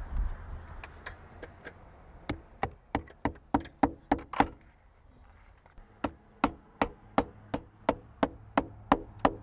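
Hammer driving a single nail through the bottom piece of metal skylight flashing into the side of the skylight frame. A few light starting taps come first, then a run of sharp, even strikes at about three a second, a short pause, and a second run of strikes.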